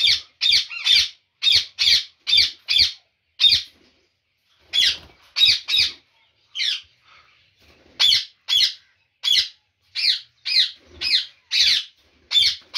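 Ringneck parakeets screeching: a rapid run of short, harsh calls, about two a second, with a brief pause about four seconds in, while their eggs are being taken from the nest box.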